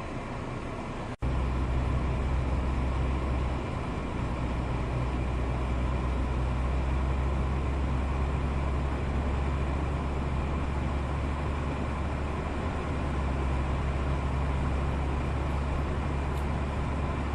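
Steady car-cabin noise while driving: a low engine drone with road and tyre hiss. The sound cuts out for a moment about a second in.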